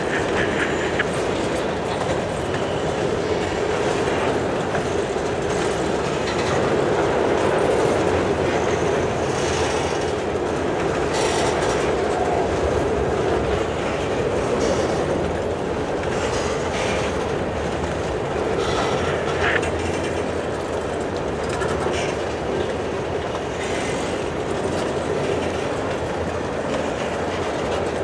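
Loaded grain hopper cars rolling past on steel rails, with a steady rumble, clickety-clack over the rail joints and a few brief wheel squeals, as the train slows to stop on the main line.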